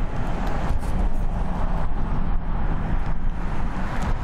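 Two General Electric GE90 turbofans of a Boeing 777F running at low taxi thrust as the freighter turns onto the runway: a steady low rumble with a hissing whoosh above it.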